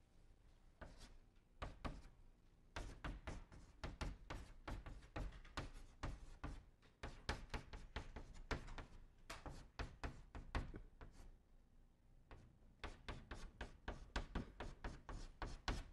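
Chalk on a blackboard: faint quick taps and strokes as characters are written, with a pause of about a second and a half some two-thirds of the way through.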